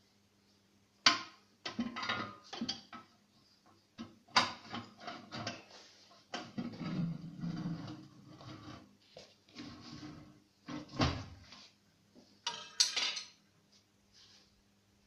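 Steel tyre bar clanking, scraping and knocking against the steel wheel rim and post of a homemade manual tyre changer as the tyre bead is levered over the rim. There are several sharp metal knocks, with dragging and rattling between them.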